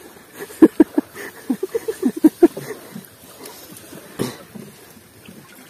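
Water sloshing and splashing as a wet fishing net is hauled up by someone wading in shallow water: a quick run of short sloshes in the first half and a single sharp knock about four seconds in.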